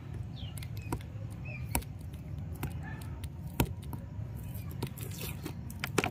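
Scattered sharp clicks and light handling noises from a toy monster truck being taken out of its box and packaging, over a low steady hum, with a few faint high chirps in the first couple of seconds.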